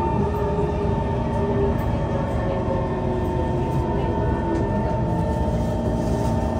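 Kawasaki C151 metro train running, heard from inside the car: a steady rumble of wheels on rail with a steady whine from the traction equipment.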